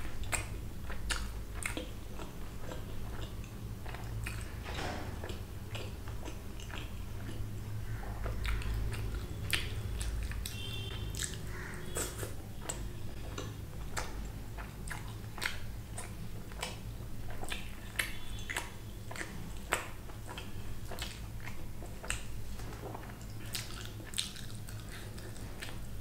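Close-miked chewing and biting of a mouthful of bhatura (fried bread) with chole (chickpea curry). Many short mouth clicks come at an uneven pace.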